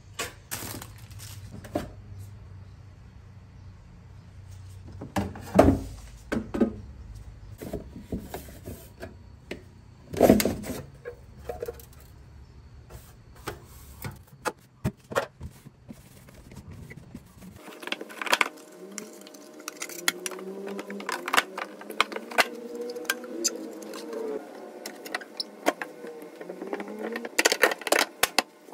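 Plastic refrigerator shelves, drawers and door bins being handled: a run of clicks, knocks and clatters over a low steady hum, with two louder knocks in the first half. In the latter part a cloth wipes the plastic, with rubbing, rapid clicks and faint wavering squeaks.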